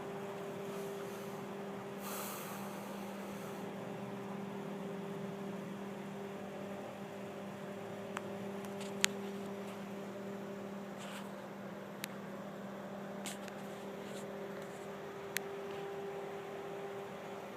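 Steady droning mechanical hum holding one low pitch with an overtone, which the recorder takes for a vacuum truck running. A brief hiss about two seconds in and a handful of sharp clicks in the second half sit over it.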